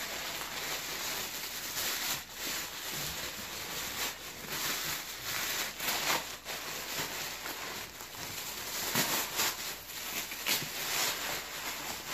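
Clear plastic bag crinkling and rustling as it is worked open and pulled off a backpack, with tissue paper rustling near the end.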